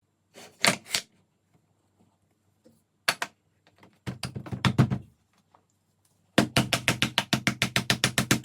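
A series of sharp knocks: a few single knocks, then from about six seconds in a fast, even run of about seven strikes a second.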